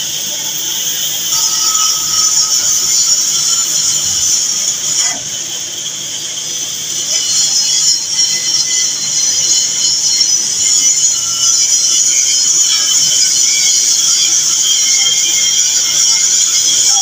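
Oxy-fuel cutting torch hissing steadily as it cuts through a steel pipe pile. The hiss drops back for a moment about five seconds in, then comes back stronger.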